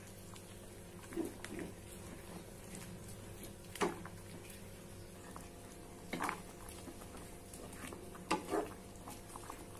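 Wooden spatula stirring simmering seblak broth in a granite-coated wok, with about six short scrapes and wet squelches spread through the stirring, over a steady low hum.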